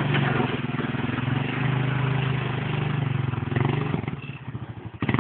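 ATV engine running steadily, then dropping back to a lumpy idle about four seconds in and picking up again near the end.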